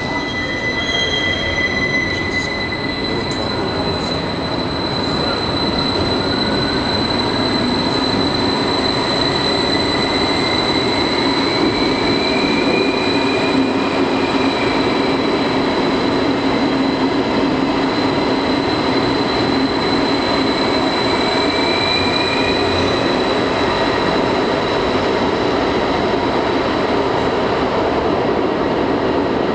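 Stadler double-deck electric multiple unit running past along an underground station platform: steady rolling noise of the wheels, with a high steady electric tone and a traction whine that rises in pitch twice.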